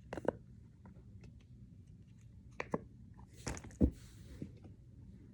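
Fidget toys being handled: a few scattered short clicks and taps, the sharpest about four seconds in.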